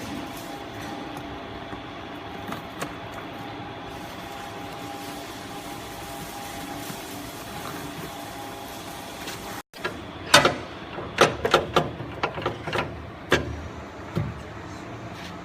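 Hydraulic baling press running with a steady mechanical hum. After a short break about ten seconds in, a quick series of sharp knocks and clanks follows for about four seconds.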